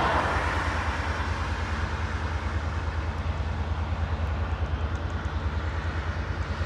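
Diesel locomotive engine running unseen, a steady low throbbing rumble.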